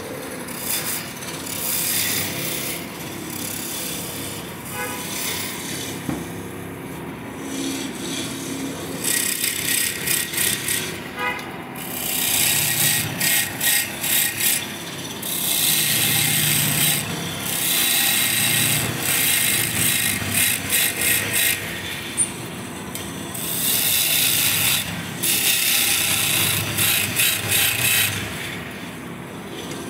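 Wood lathe running with a turning tool cutting into the spinning wood in a series of scraping passes, some of them choppy. The passes are lighter at first and get louder and more frequent from about a third of the way in.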